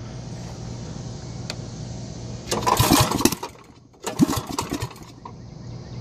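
Small go-kart engine running steadily at a low, even speed, with two short bursts of loud clattering and knocks about halfway through.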